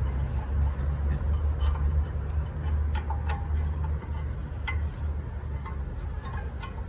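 Scattered light metallic clicks and clinks, about half a dozen, from hand tools and metal parts being handled, over a steady low hum.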